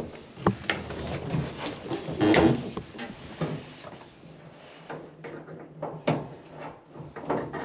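Irregular knocks, clunks and scraping as a front-load dryer is tilted and shifted in a tight space, with a louder clatter about two and a half seconds in.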